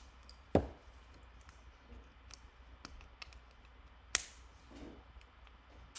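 Magnetic clipper guards and a Bevel Pro trimmer being handled: scattered small clicks and taps, with two sharper clicks about half a second in and about four seconds in.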